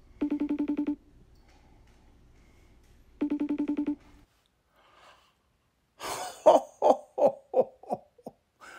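Phone ringing tone while the call connects: two short warbling rings about three seconds apart. About six seconds in, a man gives a quick run of short laughs as the call is answered, Santa's 'ho ho ho'.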